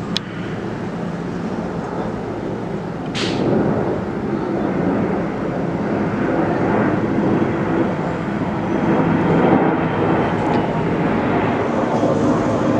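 Large firefighting air tanker flying low overhead, its engine noise a steady rumble that slowly grows louder. There is a sharp click right at the start and a brief high-pitched sound about three seconds in.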